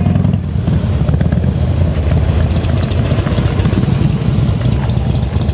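Motorcycle engine running steadily at low revs, a low, uneven pulsing beat with no revving.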